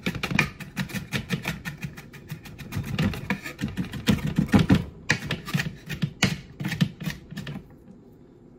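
Chef's knife chopping a chili pepper on a cutting board: a fast, steady run of sharp knocks that stops about seven and a half seconds in.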